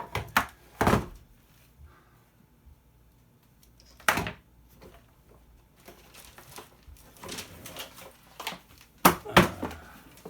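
Hard plastic toy parts knocking and clattering as they are handled and pulled apart, a handful of sharp knocks with quiet gaps, two of them in quick succession near the end.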